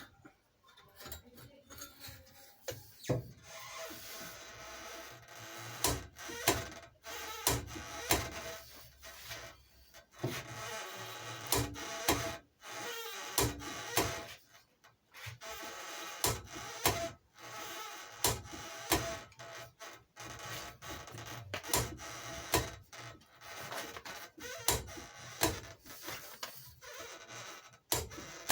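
Repeated knocks, clanks and scraping from a long metal tube being handled and worked against a torque wrench's handle, with faint music behind.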